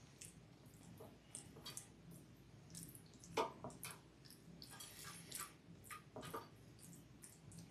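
Faint wet dabs, squishes and small clicks of a basting brush spreading marinade over raw chicken skin, the sharpest one about three and a half seconds in.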